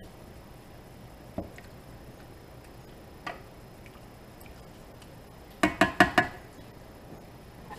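A plastic spoon stirring in a stainless steel skillet, knocking lightly against the pan a couple of times. Just past halfway comes a quick run of about five sharp, ringing taps of the spoon against the pan.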